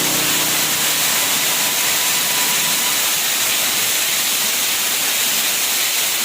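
Steady rushing noise of a waterfall: water pouring down, an even hiss with no beat, while a little background music fades out in the first second or so.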